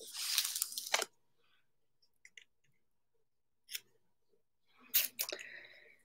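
Cardboard packaging of an iPad Pro box being handled: a rustling scrape for about a second ending in a sharp click, a few faint ticks, then clicks and rustling near the end as hands take hold of the box.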